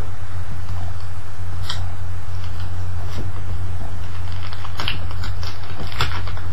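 Plastic packaging of a screen protector pack being handled, with scattered crinkles and crackles a few times, over a steady low electrical hum.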